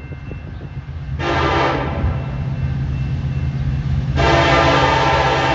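Diesel locomotive air horn on CN 8925, the leading unit of a Canadian National freight train: one short blast about a second in, then a long blast starting about four seconds in, over the steady low rumble of the approaching locomotives' engines.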